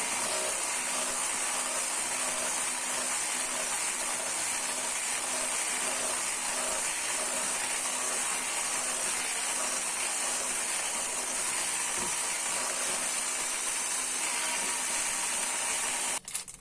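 Steady, even hiss of a running machine or steam, cutting off abruptly near the end.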